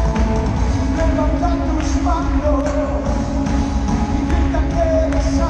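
Live Christian worship band music played over an arena's sound system: a singer's voice wavers over held keyboard-like chords, heavy bass and light drum hits, echoing through the large hall.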